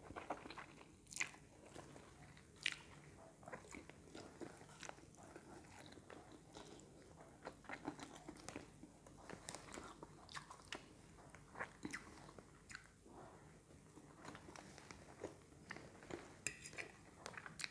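Faint close-up eating sounds: a person chewing mouthfuls of stir-fried pancit canton noodles, with scattered short sharp clicks and taps of a metal fork against a plate.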